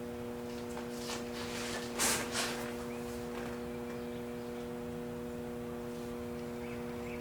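A steady hum of several fixed tones, with two short rasping handling noises about two seconds in, in the middle of taping a go-kart's kill-switch wiring.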